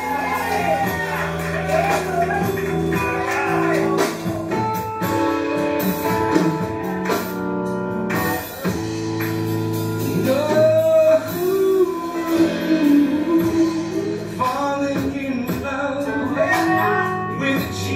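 Live gospel song: a man singing over sustained keyboard chords and a band.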